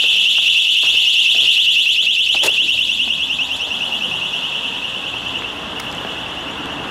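A building's electronic alarm sounding: a loud, high-pitched tone pulsing rapidly, growing fainter after about three seconds. A single sharp knock about two and a half seconds in.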